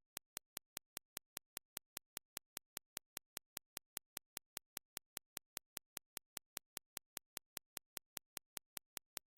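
Evenly spaced sharp clicks, about five a second, with dead silence between them.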